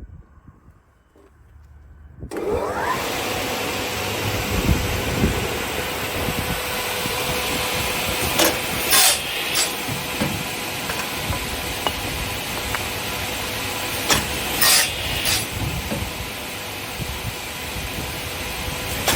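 Winter Cutmax 450 crosscut saw's 5.6 kW motor starting about two seconds in, rising in pitch, then running steadily with the blade spinning. Two clusters of about three short, loud bursts come partway through and again later.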